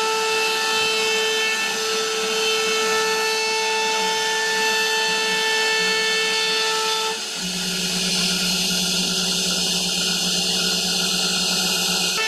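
CNC router spindle running and cutting into a wooden panel: a steady whine over the hiss of the bit chewing wood. About seven seconds in, the whine gives way to a lower hum.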